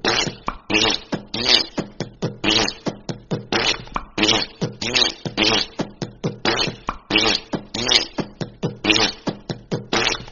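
Fart sound effects: a fast, even string of short farting blasts, about two to three a second, each a low buzzing rasp with a hissy edge.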